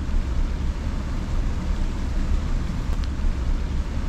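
Steady outdoor noise: wind buffeting the microphone, giving an uneven low rumble, over the hiss of a flowing creek.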